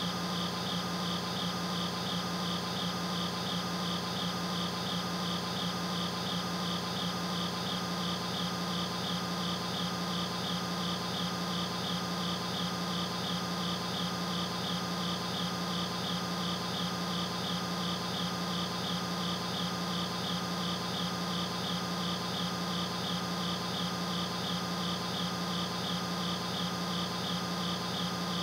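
Night insects chirping in a fast, even rhythm over a constant low hum.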